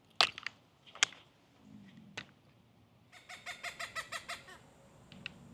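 Cooper's hawk calling a fast, even series of harsh cackling notes, about seven a second for a second and a half. A few sharp ticks come before it.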